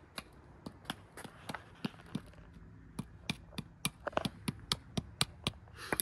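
A rock used as a hammer tapping a penny against a concrete slab to shape it into a makeshift washer. It makes a string of sharp taps, about three a second at first and quickening to about four a second in the second half.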